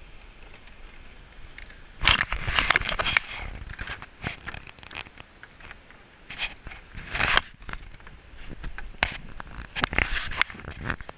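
Bouts of scraping and crackling contact noise from the action camera being handled and swung on its stick, loudest about two seconds in and returning twice more, over a faint steady rush of river water.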